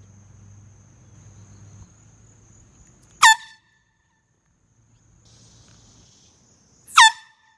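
Air horn sounded in two short blasts about four seconds apart, each swooping up in pitch as it starts before cutting off.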